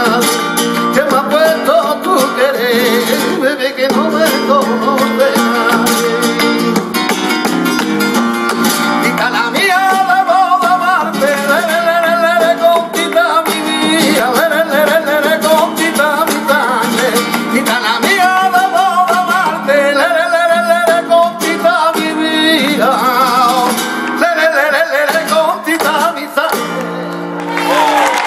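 Flamenco tangos performed live: a male cantaor singing over a flamenco guitar, with palmas (rhythmic hand-clapping) keeping time. The piece ends near the end and applause starts.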